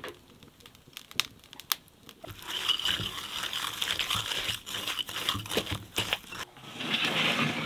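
A few sharp clicks, then a wooden spoon working butter and sugar in a glass bowl: a gritty, crunching scrape of sugar grains against the glass as the butter and sugar are creamed, pausing briefly near the end before starting again.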